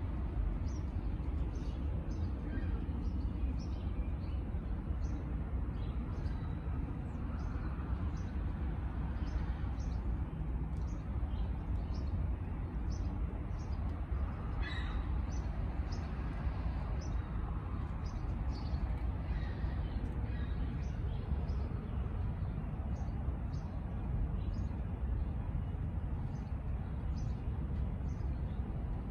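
Small birds chirping, a long run of short high chirps over a steady low background rumble, with one louder rising call about fifteen seconds in.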